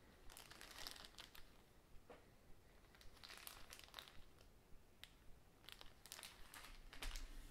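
Quiet crinkling of a small clear plastic kit parts bag being handled and turned over in the hands, in three irregular spells.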